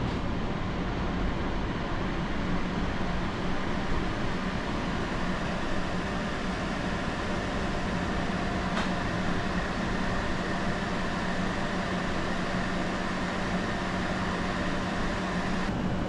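Toshiba portable air conditioner running: a steady rush of air from its fan over a low hum, the hum growing a little stronger about halfway through. A faint click about nine seconds in.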